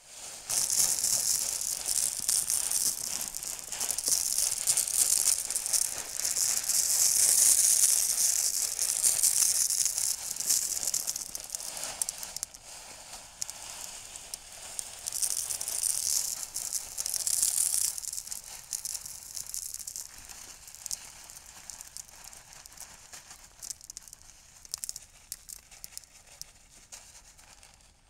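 Small rounded gravel being poured and spread onto landscape fabric: a dense, hissing rattle of many pebbles. It comes in loud spells for the first ten seconds or so and again around fifteen to eighteen seconds, then thins to a quieter, scattered rattle of stones.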